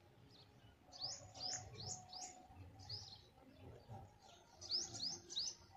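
Small birds chirping faintly in quick runs of short rising notes, one run about a second in and another near the end, over a faint low rumble.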